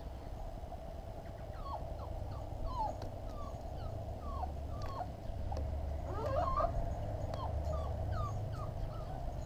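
An animal's short whimpering calls, each sliding down in pitch, one or two a second, with a busier tangle of calls about two-thirds of the way through, over a steady low rumble.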